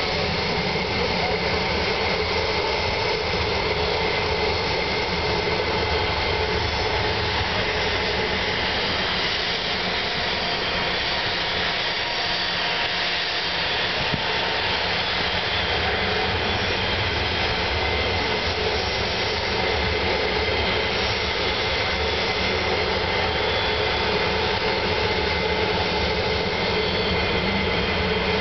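Tupolev Tu-154M's three rear-mounted Soloviev D-30KU-154 turbofans running at taxi power: a steady jet whine with several high tones over a low rumble, holding level as the airliner taxis and turns onto the runway.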